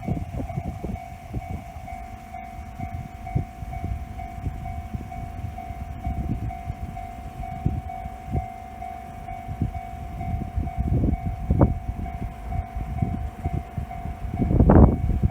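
Railway level-crossing alarm ringing its steady, evenly repeating bell tone while a train rumbles and clatters past at low pitch. The rumble grows loudest near the end.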